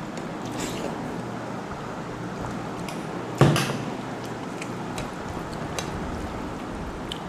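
Dishes and utensils clinking faintly during a meal, with one sharp knock about three and a half seconds in, like a bowl or plate set down hard.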